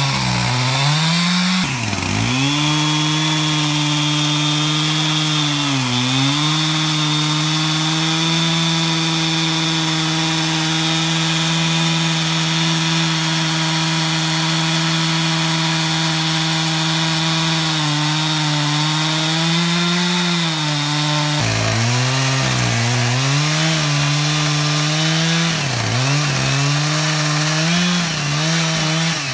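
Chainsaw in an Alaskan chainsaw mill running at full throttle while ripping lengthwise through a log. The engine note holds steady, then sags briefly several times, most often in the second half, as the chain bogs down in the cut.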